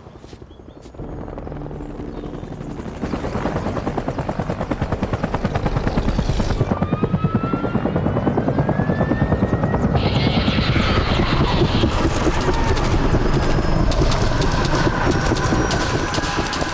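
Helicopter passing low overhead: the beat of its rotor blades grows louder over the first few seconds into a fast, steady pulse, with a rising whine over it. From about ten seconds in a harsher, higher layer joins, with rapid sharp cracks near the end.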